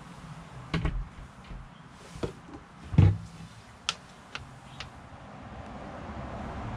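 The door of an EverChill compact refrigerator being handled and swung open: a few knocks and clicks, the loudest about three seconds in, followed by lighter clicks.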